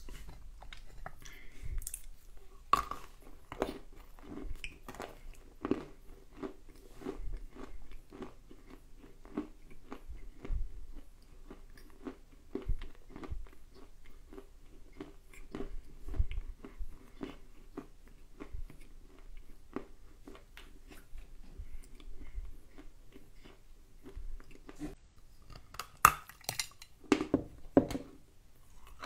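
A person chewing lumps of dry clay close to the microphone: a steady run of small, crisp crunches as the clay breaks between the teeth, with a few louder crunches near the end.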